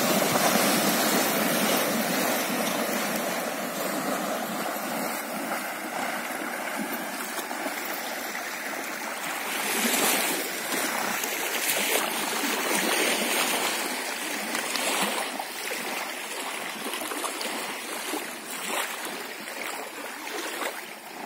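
Shallow river water rushing steadily, with a spell of splashing from about ten seconds in.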